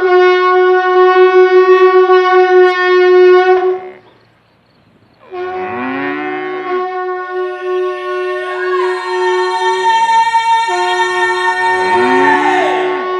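Ox horns blown in long, steady, loud held notes, broken off once for about a second around four seconds in and then taken up again. A second, higher note joins partway through, and sliding calls that fall in pitch sound over the notes twice.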